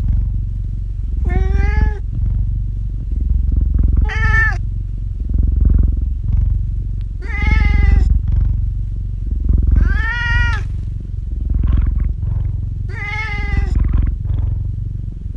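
Domestic cat meowing five times, about every three seconds, each call rising then falling in pitch, over a steady low purr.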